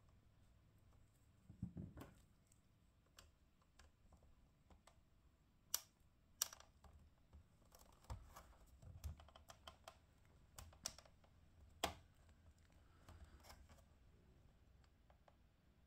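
Plastic clicks and creaks of a Chevrolet Traverse instrument cluster's snap-lock clips and lens housing being worked by hand, with light handling rustles. A few sharp clicks stand out, two close together about six seconds in and one near twelve seconds.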